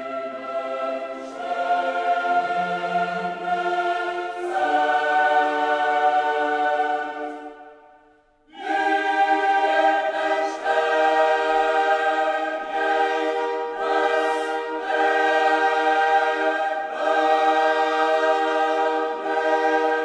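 Choral music: voices singing long held chords that change every few seconds, breaking off briefly about eight seconds in before starting again.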